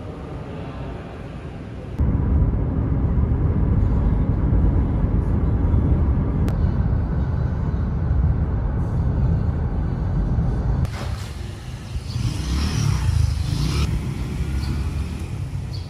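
Low, steady rumble of a Nissan car driving, heard from inside the cabin; it starts abruptly about two seconds in after quieter room ambience, and changes abruptly again near eleven seconds to a hissier mix.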